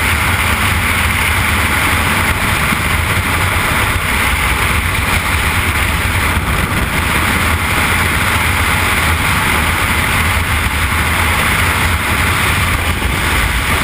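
Loud, steady rush of freefall wind buffeting a skydiver's camera microphone, with a deep rumble under a hiss.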